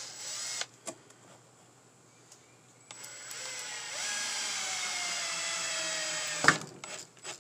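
Cordless drill driving a wood screw through a plexiglass sheet into wood: a brief burst of the motor at the start, then a run of about three seconds whose whine slowly drops in pitch, ending in a sharp, loud click.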